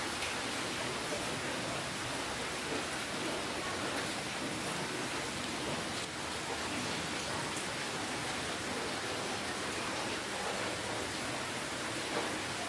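Steady rainfall, an even hiss of rain with faint scattered drop ticks.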